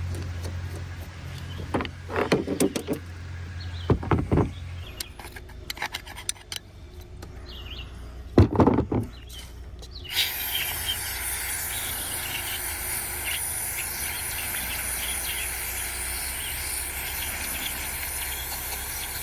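Small metal tools and carburetor parts clicking and knocking, with one louder knock near the middle. Then, about ten seconds in, an aerosol can of carburetor cleaner starts hissing steadily as it is sprayed into a seized needle valve to let it soak.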